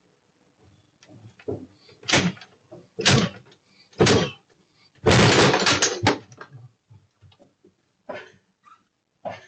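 A front door being kicked: three hard kicks about a second apart, then a longer crash about five seconds in as it is forced, followed by a few smaller knocks.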